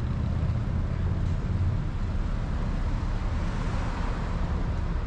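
A moving vehicle: a steady low rumble of engine and road noise.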